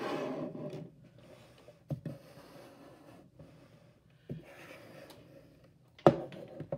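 Handling noise on a wooden desk: a few separate clicks and knocks, each followed by a short rubbing scrape, as things around a weather alert radio are moved and adjusted.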